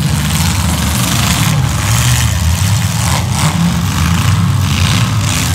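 Demolition derby cars' engines running and revving loudly in the arena, with several surges of noise over the steady low rumble.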